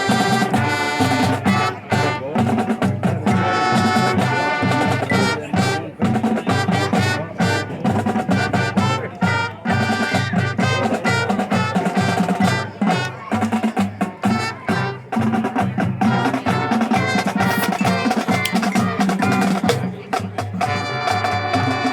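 High school marching band playing: brass chords over a drumline's steady percussion.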